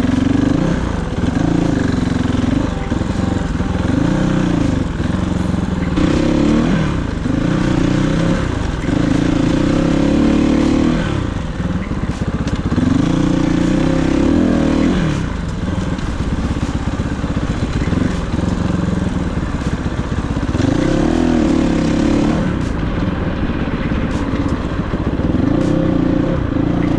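Kovi 450i Pro enduro motorcycle's single-cylinder four-stroke engine revving up and dropping back over and over as it is ridden. Its pitch climbs with each opening of the throttle and falls between.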